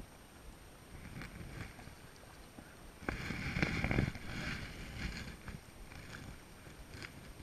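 Clattering knocks and rustling as a landing net is grabbed and lifted out of the boat, loudest for about a second near the middle, with a few lighter knocks after.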